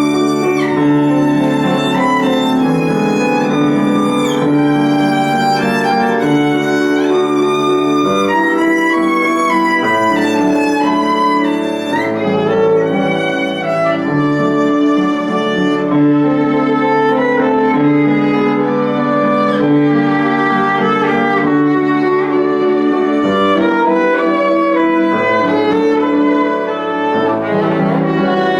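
Solo violin playing a melody of long-held notes with vibrato, over a lower accompaniment, likely piano.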